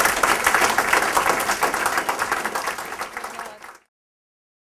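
Audience applauding, fading over the last second, then cut off abruptly a little under four seconds in, leaving dead silence.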